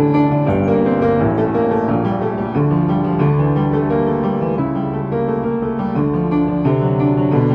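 Piano playing a piece, with sustained chords and melody notes changing about every half second to second.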